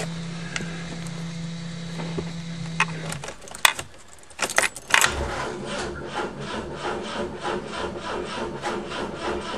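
Electric fuel pump of a 1973 BMW 2002tii buzzing steadily, stopping about three seconds in, followed by a few clicks. Then the starter cranks the 2.0-litre four-cylinder engine over in a steady rhythm, about three turns a second, without it catching. The owner suspects no spark from the points and condenser, or no fuel pressure because of a leak at the injection pump.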